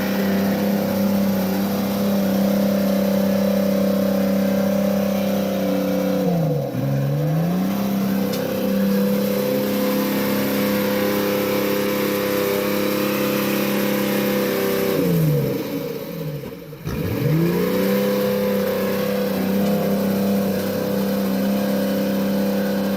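Motor engine running hard at a steady high pitch. Twice its pitch falls sharply and climbs back, as if the engine bogs down under load and recovers.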